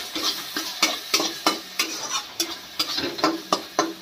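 A spatula scrapes and knocks repeatedly against a metal kadhai, about three strokes a second, stirring an onion-and-spice masala. Under it runs the steady sizzle of the masala frying in oil.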